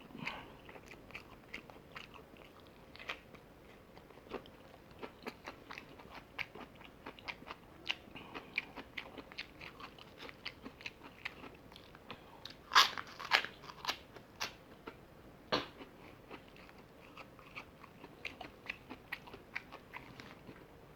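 A person chewing fried chicken and rice: a steady run of wet smacks and crisp crunches, loudest in a cluster about 13 seconds in.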